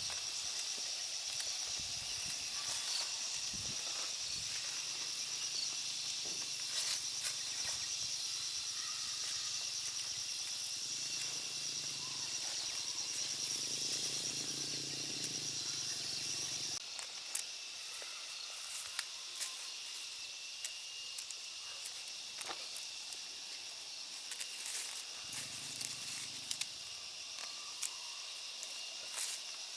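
Insects droning steadily in a continuous high buzz, with scattered light clicks and rustles over it.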